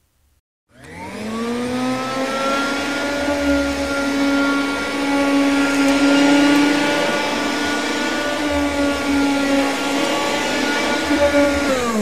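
Cordless stick vacuum cleaner switching on with a rising whine about a second in, then running steadily as it is pushed over a rug, its motor starting to wind down at the very end.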